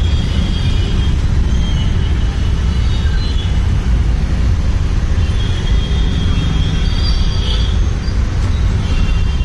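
Auto-rickshaw engine running with a steady low rumble, heard from inside the open passenger cabin, with the noise of surrounding road traffic.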